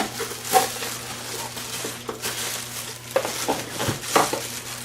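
Packaging being handled while a speaker set is unpacked from its box: plastic and cardboard rustling, with several short knocks and clatters.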